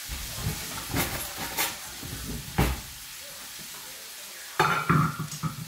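Beef sizzling as it fries in a pan, with a few sharp knocks of cookware. About four and a half seconds in, a stainless steel pot lid clatters as it is lifted off a pot of boiling vegetables.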